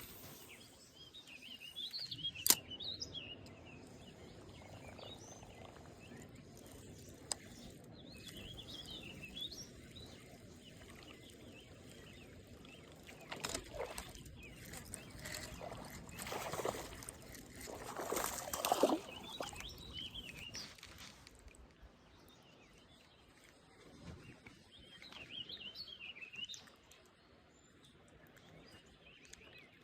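Outdoor ambience with a songbird singing short warbled phrases every several seconds. A sharp click comes about two and a half seconds in, and there are a few louder noisy bursts in the middle.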